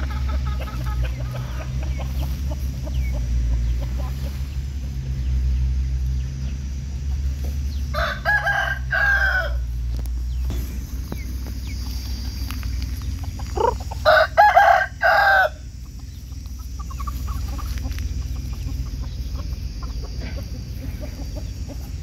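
Rooster crowing twice, about eight seconds in and again, louder, around fourteen seconds in, with hens clucking quietly around it.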